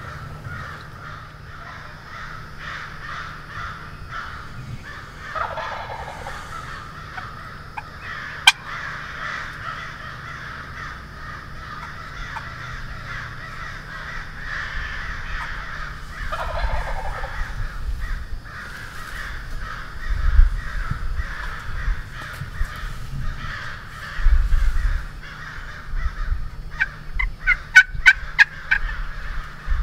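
Wild turkey gobbling twice, each gobble a short rattling call about eleven seconds apart, over a steady background noise. Low thumps come in the second half, and a run of sharp calls near the end.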